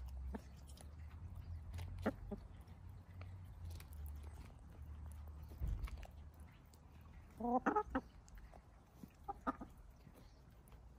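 Hens clucking while they feed on cooked rice: a quick run of short clucks a little past halfway and a shorter pair near the end.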